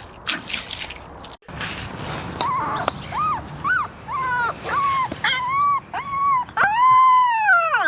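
A dog whining: a series of short high whines that grow longer, ending in one long drawn-out whine that drops in pitch at the end. A few sharp clicks come before the whining.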